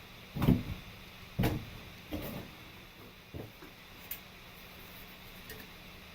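A series of short knocks and clunks from parts being handled, two louder ones in the first second and a half, then three or four lighter ones, over a faint steady background hum.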